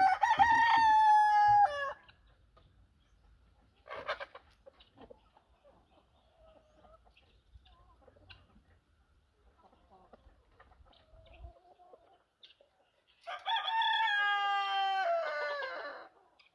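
Rooster crowing twice: one crow at the start and a longer one near the end, each holding its pitch and then falling away. A short sharp call sounds about four seconds in.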